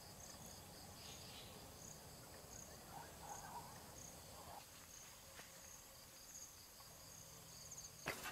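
Faint insect chirping, short high chirps repeated about once a second over a steady high hiss. Just before the end a sudden burst of rustling and crackling starts.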